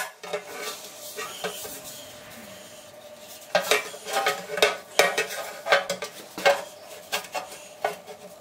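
Hammer tapping out dents in a steel motorcycle petrol tank. A few faint clinks come first, then from about three and a half seconds a run of separate metallic strikes, roughly three a second, each ringing briefly.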